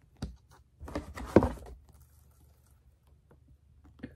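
Handling noise as a pair of black leather lace-up heeled boots is picked up and moved about close to the microphone: scattered knocks and rustles, with the sharpest knock about a second and a half in and a few small clicks near the end.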